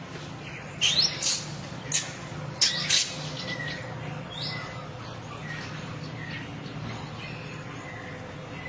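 A monkey's shrill squeals: five short, loud cries that sweep up in pitch, in quick succession over about two seconds, followed by faint short chirps.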